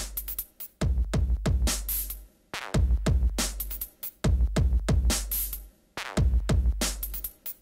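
Electronic background music with a drum-machine beat and heavy bass pulses.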